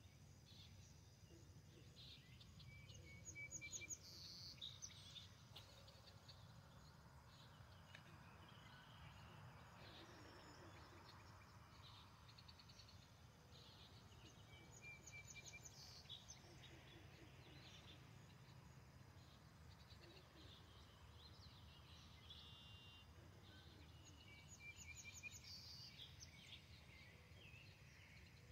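Faint songbird calls at a pond: the same short song comes three times, about ten seconds apart, with scattered other chirps in between. A steady low background hum runs underneath.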